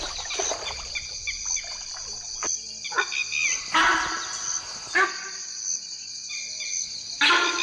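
Insects chirring in a steady, high, finely pulsing chorus, with scattered short chirps. A few short, louder animal sounds break in about four, five and seven seconds in.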